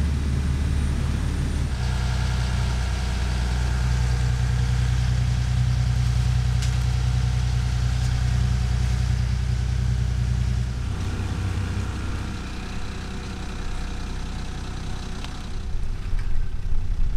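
Motor boat's engine running steadily under way, a low steady drone; it becomes quieter about eleven seconds in.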